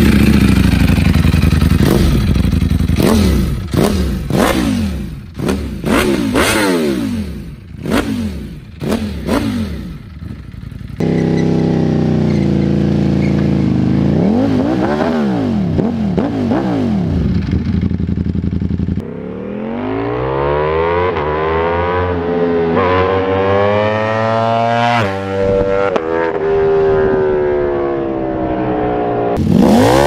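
Ducati Panigale V4's V4 engine being revved hard in quick throttle blips, with sharp pops between the revs. The sound then cuts to a steadier high-revving note that rises and falls once, and about 19 seconds in to long rising sweeps as the bike accelerates.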